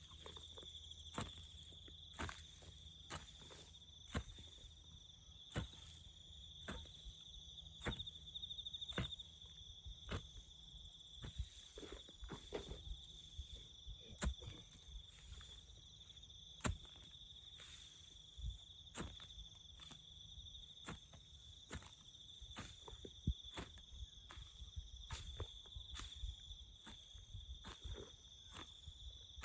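Crickets chirring steadily in the bush, with sharp knocks about once a second.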